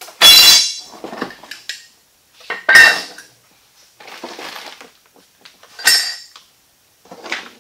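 Aluminium Yagi antenna tubing and elements clanking and ringing against each other as they are lifted out of their shipping box. There are three loud clanks, one just after the start, one near three seconds and one near six seconds, with lighter knocks and a stretch of bubble-wrap rustle in between.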